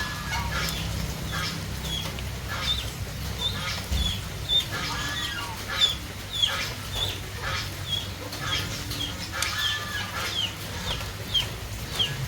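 Chickens clucking, with short high falling peeps repeated about twice a second over a steady low hum.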